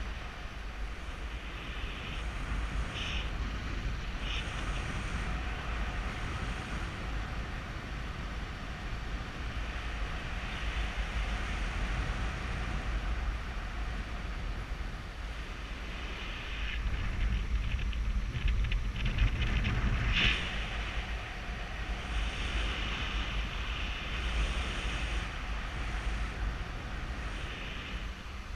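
Wind rushing over a GoPro Hero3's microphone in paragliding flight: a steady rush with a deep rumble, growing stronger for a few seconds past the middle and ending that stretch with a sharp click.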